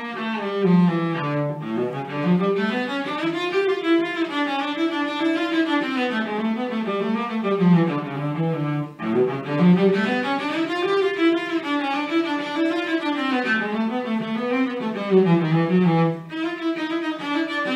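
Solo cello played with the bow: continuous runs of notes climbing and falling in repeated arcs, with a brief break about halfway through.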